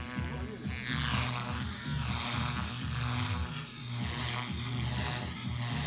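Electric RC aerobatic helicopter, a Lynx Oxy, flying 3D manoeuvres: its rotor blades swish in repeated rising and falling sweeps over a thin steady motor whine. Music plays in the background.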